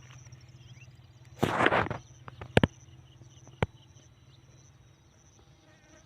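A short rushing scrape about a second and a half in, followed by three sharp clicks or knocks, over a faint steady hum and high insect-like chirping.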